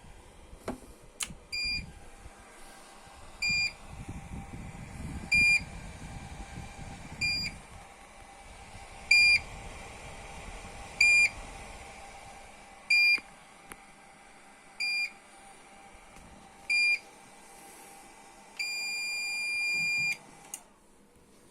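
A 220-volt power inverter's buzzer beeps about every two seconds over the steady whine of its cooling fan. Near the end it gives one longer beep of about two seconds, then the beeping and the fan both stop.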